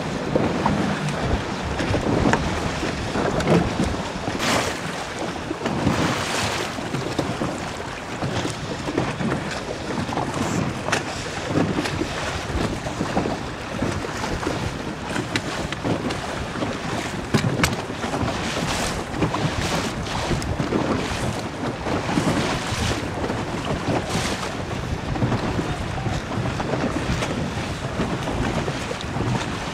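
Wind buffeting the microphone over choppy open water, with waves splashing. Gusts swell and fade every few seconds.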